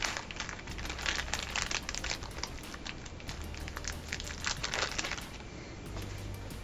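Small hardware, such as motherboard standoffs and screws, clicking and rattling in quick irregular clicks as it is rummaged through by hand.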